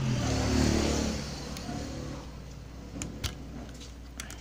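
A motor vehicle going past, its engine note dropping and fading over about two seconds, followed by a few light clicks.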